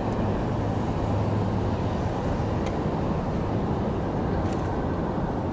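Steady low rumble of distant city road traffic, with no single vehicle standing out.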